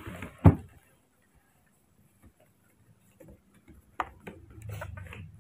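A sharp, loud knock about half a second in, then a few faint clicks and taps, with a sharper tick about four seconds in.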